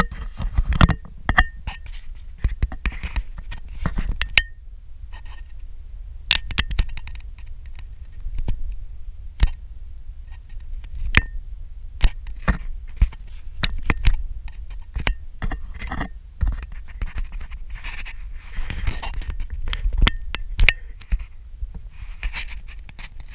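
Irregular knocks, clicks and scrapes close to the microphone over a steady low rumble: contact or handling noise on the camera, some clicks with a brief ringing.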